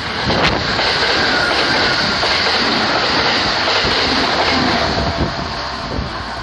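Kintetsu express train of 2800-series and 2430-series electric cars passing close by at speed: a loud, steady rush of wheels on rail with a faint whine that drops slightly in pitch. A few sharp rail clicks come near the end as the sound eases and the train recedes.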